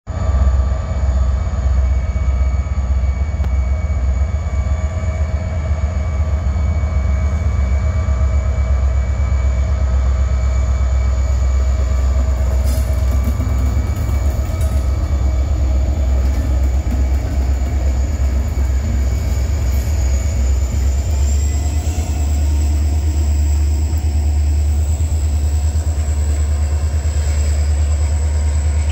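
Two Renfe class 333 diesel locomotives running together at the head of a freight train: a loud, steady deep engine drone with whining tones above it, and a high whine that rises a little after two-thirds of the way in.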